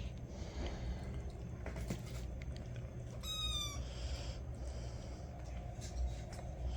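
Six-week-old kitten with a cleft palate eating wet food, with small wet clicks and snuffly, snorting breaths, and one high-pitched mew a little past three seconds in. The snorting comes from the cleft palate.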